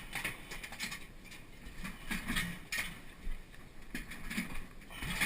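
A metal tank-type water heater being rolled and shifted by hand, giving irregular knocks, scrapes and creaks, with the loudest knock near the end. The sound is somewhat muffled, as if from inside a waterproof camera case.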